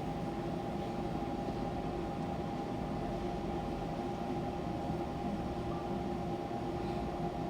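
Fukuoka City Subway 2000-series car standing at a station with its onboard equipment running: a steady electrical hum with two steady tones, one mid and one higher, over a low rumble, heard through the car floor.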